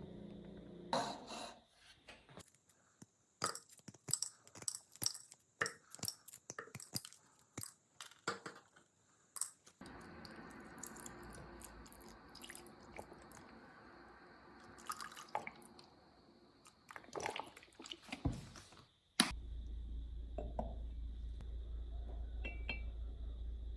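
Irregular small clicks, taps and crunches of hand work on an object, then a steady low hum that starts suddenly near the end.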